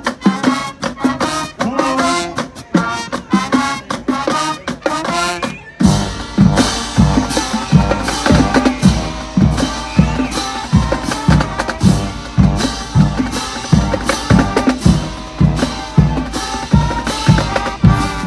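Show-style high school marching band playing: short, sharp band hits for the first few seconds, then about six seconds in the full band comes in with heavy low brass and drums on a steady beat of about two hits a second.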